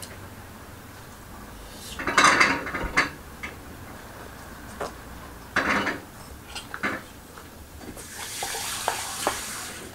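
Dishes and a stainless steel bowl clattering on a table, with several sharp knocks, the loudest about two seconds in, and a longer scraping noise near the end as the bowl is handled.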